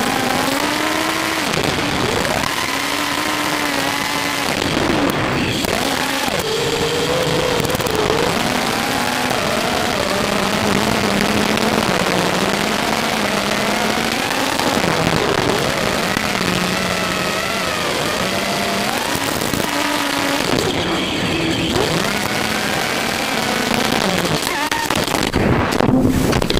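Four 2205 2300kv brushless motors and their props on a 5-inch FPV racing quadcopter, whining over a hiss, the pitch rising and falling as the throttle changes in flight.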